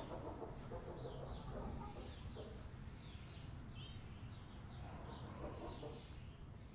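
Chicks peeping in many short high chirps while a hen clucks.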